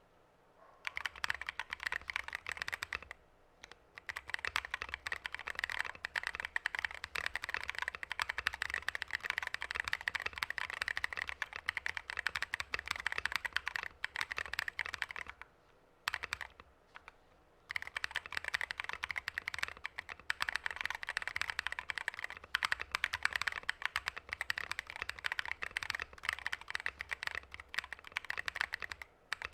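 Typing on a Tofu60 60% mechanical keyboard with MMD Holy Panda tactile switches: a fast, continuous stream of keystroke clacks. It breaks off briefly about 3 seconds in and again about halfway through.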